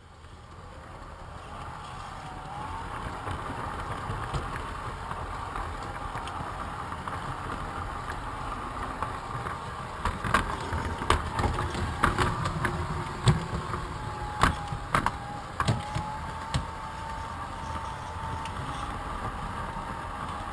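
Model train running along its track, heard from on board: a steady rolling rumble with a faint wavering motor whine, building up over the first few seconds. Around the middle comes a run of sharp clicks as the wheels go over the track through a curve.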